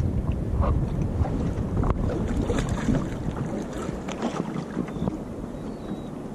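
Wind buffeting the microphone over water splashing and lapping against the hull of a small boat on the sea, the low rumble easing off after about four seconds.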